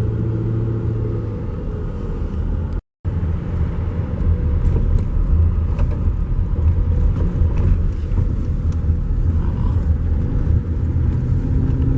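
Car heard from inside the cabin while driving: a steady low rumble of engine and tyres on a broken-up road. The sound cuts out completely for a moment about three seconds in.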